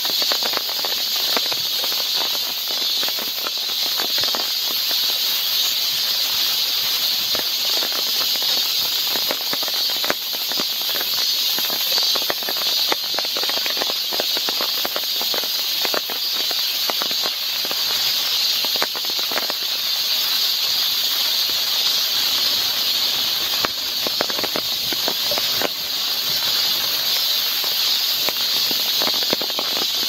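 Steady rain falling on foliage and a wet boardwalk: an even high hiss dotted with many small drop taps.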